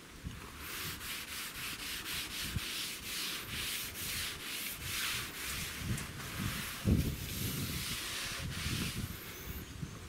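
Cloth rag rubbing raw linseed oil into a blue gum timber board in quick back-and-forth strokes, about three a second, working the oil into the grain. A single low knock about 7 seconds in.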